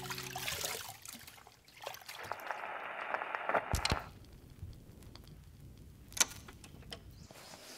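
Water splashing and sloshing as clothes are washed by hand in a plastic tub. About four seconds in there is a sharp click, then the faint crackle and scattered ticks of a spinning vinyl record under the stylus.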